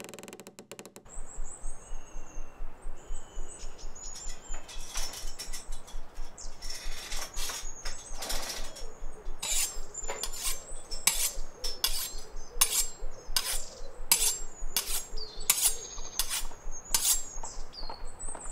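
Birds chirping, then a steady run of sharp metallic clinks, about two a second, getting louder in the second half.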